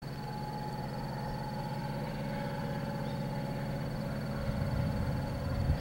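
Diesel engines of EMD SD70ACe freight locomotives approaching, a steady low drone that grows louder about four and a half seconds in.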